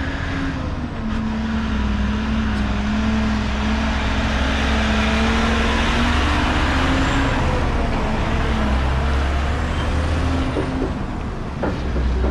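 Link-Belt truck crane driving past at road speed: its diesel engine drones steadily under a wash of tyre and road noise, which swells as it passes close and then eases off as it moves away.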